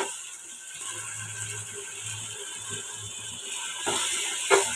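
Spatula stirring and scraping spice paste as it fries in oil in a cooking pot: a scratchy, rattling scrape over a faint sizzle. A low steady hum comes in about a second in and breaks off near the end.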